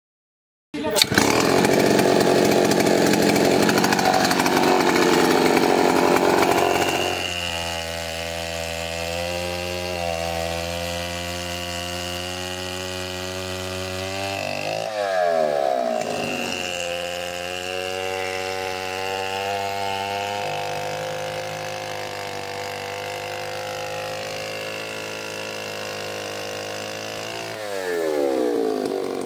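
Large 105 cc gasoline chainsaw with a 30-inch bar sawing through a log. It runs loud and rough for the first several seconds, then settles to a steadier, quieter engine note. The engine speed dips and picks up again about halfway through and once more near the end.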